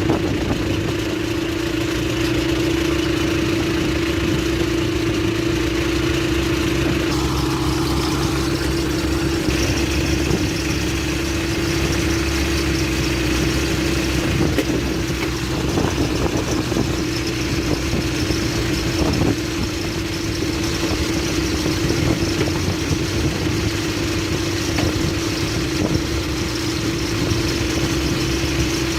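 Bulldozer's diesel engine running steadily, with a constant droning tone throughout.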